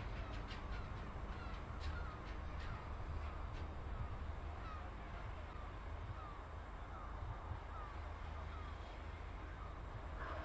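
Empty bogie tank wagons rolling slowly over curved track: a short wheel squeak repeating regularly about every two-thirds of a second, with sharp clicks from the wheels over the rail joints for the first few seconds, over a low rumble.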